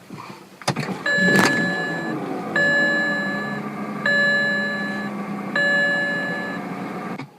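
A BMW's warning chime sounding four times, each tone about a second long and about a second and a half apart, over a steady low hum. Two sharp knocks come in the first second and a half, before the first tone.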